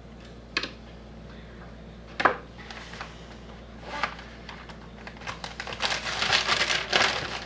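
Fillet knife cutting the rib bones off a fish fillet: a few separate clicks and knocks, then a dense crunching crackle over the last two seconds.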